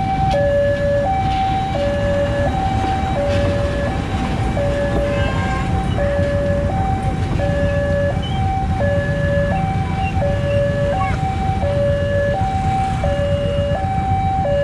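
Railway level-crossing warning alarm: an electronic two-tone signal alternating steadily between a lower and a higher tone, each held a little over half a second, sounding while a diesel locomotive crosses. Under it runs a steady low rumble of engines from the locomotive and the waiting motorcycles.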